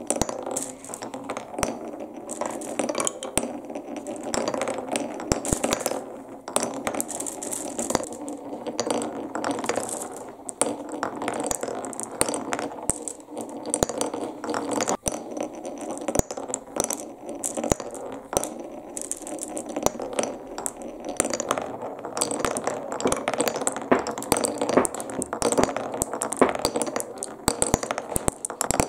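Balls rolling down a HABA wooden marble run: a continuous wooden rolling rattle, dense with clicks and clacks as the balls knock along the track and drop onto lower sections.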